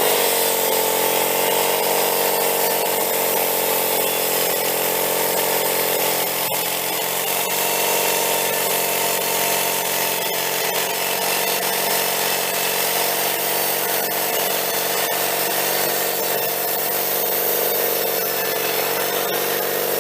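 Engine-driven sawmill running steadily under load, its saw blade cutting through a log.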